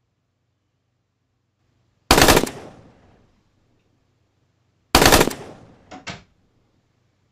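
Two loud bursts of rapid banging about three seconds apart, each a quick cluster of impacts that dies away, the second followed by two short sharp clicks.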